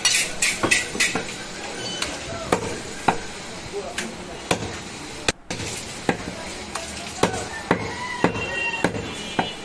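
Goat meat being chopped with a blade: a run of sharp, irregular strikes, roughly one or two a second, broken by a brief gap about halfway through.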